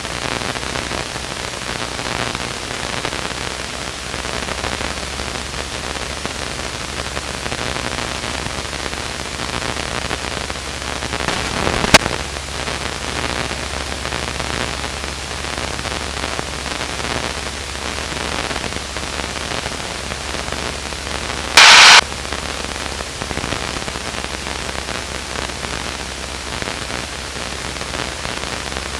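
Steady hiss-like cockpit noise of a Luscombe light aircraft in flight, with a constant low engine hum beneath it. A sharp click comes about 12 seconds in, and a loud burst of static about 22 seconds in cuts off after under half a second.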